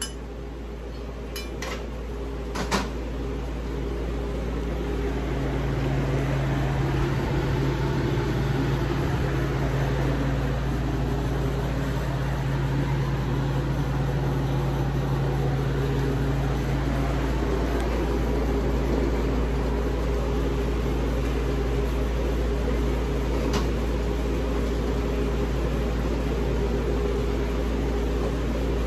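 A steady mechanical hum from running machinery that grows louder over the first few seconds and then holds even. A few sharp clicks come near the start and again near the end.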